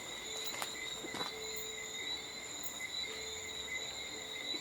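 Steady chorus of night insects, a continuous high-pitched trilling in several pitches, with a fainter lower hum coming and going and a couple of faint clicks about a second in.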